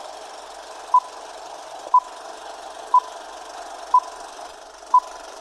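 Film countdown leader beeps: one short beep each second, five in all, over a steady hiss.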